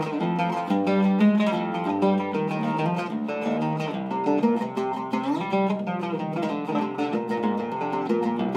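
Solo Zaryab oud with a cedar soundboard and Kürschner strings, plucked with a plectrum: a quick run of melodic notes across its range, with a sliding note about halfway through.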